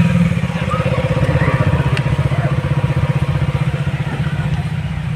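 A vehicle engine running steadily at low revs close by, a fast, even throb with no revving.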